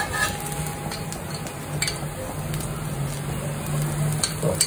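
A pesarattu dosa sizzling in oil on a hot tawa, with a few short scrapes and taps of a spatula working under its edge.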